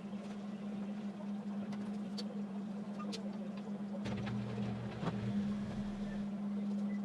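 A steady low mechanical hum with scattered light clicks; a second, lower hum joins for about a second around two thirds of the way in.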